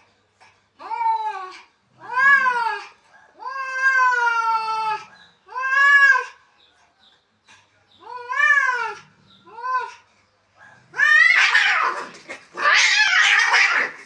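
Domestic cats caterwauling in a fight: six drawn-out yowls, each rising then falling in pitch, then two longer, harsh, ragged squalls near the end.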